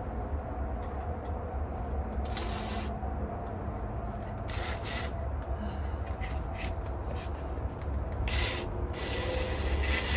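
Screws being driven into the wooden greenhouse door frame, in several short bursts over a steady low rumble.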